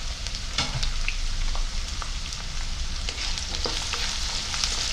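Sliced onions, green chillies and garlic cloves sizzling in hot oil in a non-stick wok, with a spatula stirring them and clicking and scraping on the pan now and then.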